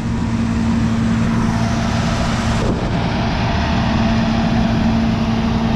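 Combine harvester's engine running steadily and loudly while harvesting soybeans.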